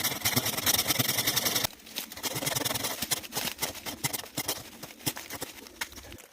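Bellota Japanese pull saw rasping through a log: fast, dense sawing for the first second and a half or so, then slower, sparser scraping strokes.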